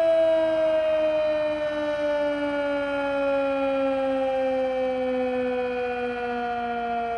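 A 16-port Sentry 10V warning siren sounding its noon test: a loud, sustained two-tone wail that slowly falls in pitch.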